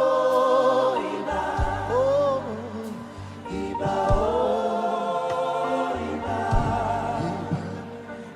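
Live gospel worship: a choir sings sustained held notes over a band with bass and drums.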